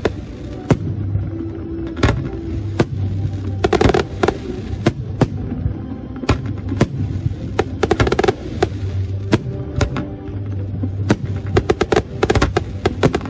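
Fireworks display: aerial shells bursting as repeated sharp bangs, with dense runs of rapid crackling about four and eight seconds in. Music plays underneath.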